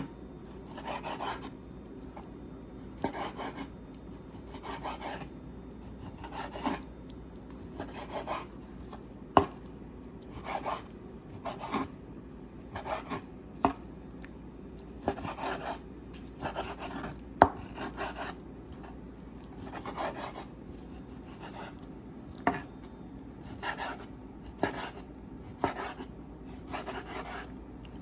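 Chef's knife dicing raw boneless chicken thighs on a cutting board: short, uneven slicing strokes about once a second, with a few sharper knocks of the blade on the board. A steady low hum runs underneath.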